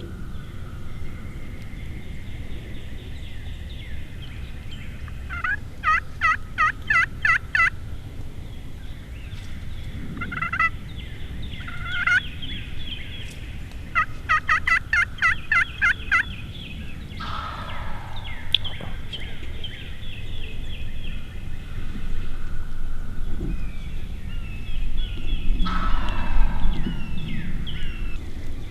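An eastern wild turkey gobbler gobbling twice, with two quick runs of about eight sharp turkey yelps each, about four a second, and small songbirds chirping.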